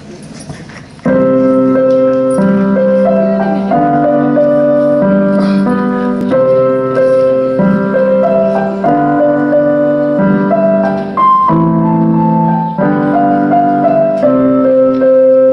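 Slow instrumental music, with a keyboard-like melody over sustained chords that change about every second and a half. It comes in suddenly about a second in.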